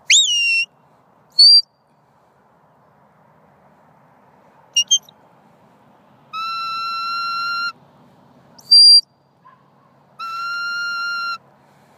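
Sheepdog handler's whistle commands to a working border collie: a rising-then-falling swoop, a few short high pips, and twice a long flat note lasting over a second.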